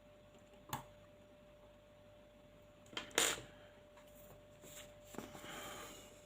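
Small parts of an airsoft rifle's hop-up unit clicking and knocking as they are handled and fitted back together: one click about a second in, two sharper knocks around three seconds, then rustling handling near the end. A faint steady hum sits underneath.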